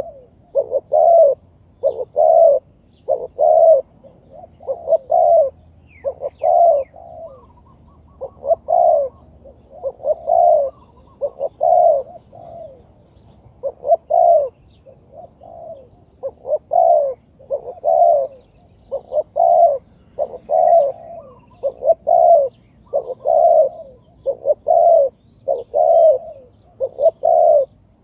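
Spotted dove cooing over and over, short low cooing phrases repeating about every second or two.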